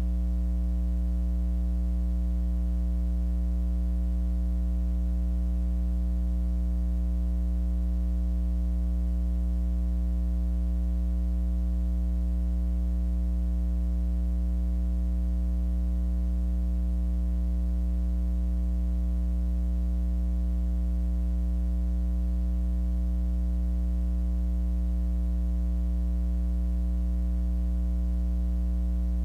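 Steady electrical mains hum: a low, unchanging drone with a stack of overtones above it, and nothing else to be heard.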